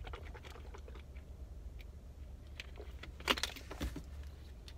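Low steady hum of a car idling, heard inside the cabin, with a few light clicks and rustles a little after three seconds in.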